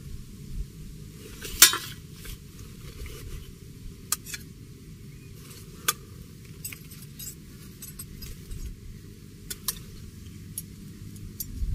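A metal utensil clinking and scraping against a small frying pan as food is served out of it, the loudest clink about two seconds in, followed by scattered sharp clicks and taps.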